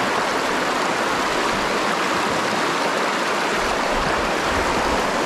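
Creek water rushing steadily over rocks, an even hiss of flowing water.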